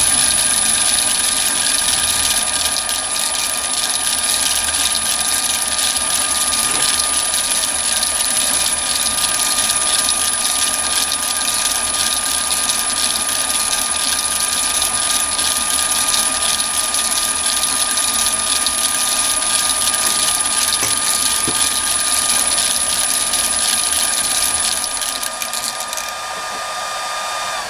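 A Chinese mini lathe's belt drive, powered by a three-phase motor on a variable frequency drive, running steadily at speed: an even motor-and-belt whir with a constant high whine. Near the end the sound starts to die away as the lathe slows.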